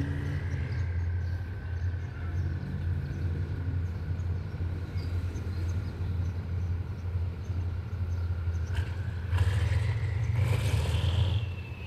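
Diesel locomotive running at idle: a steady low drone with a thin high whine. About ten seconds in, the whine rises and a rush of hissing noise comes up for a couple of seconds.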